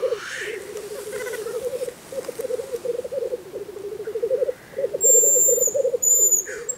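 Black grouse bubbling at a lek: a low, rapidly pulsing cooing song in phrases of about a second, repeated one after another. Two short, high, thin whistles cut in about five and six seconds in.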